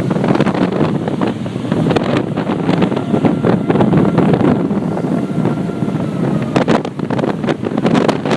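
Gale-force wind buffeting the microphone in loud, gusting rumbles, with heavy surf breaking behind it.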